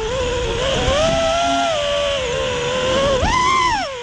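A 6S FPV racing quadcopter's brushless motors and propellers whining, the pitch shifting with the throttle. A little past three seconds in the whine jumps up sharply as the throttle is punched, then drops back. A low rumble runs underneath.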